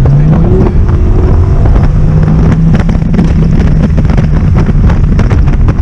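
Audi R8's 5.2-litre V10 engine and exhaust pulling hard: the revs climb over the first half second, then hold steady and loud. Gusty wind buffets the microphone throughout.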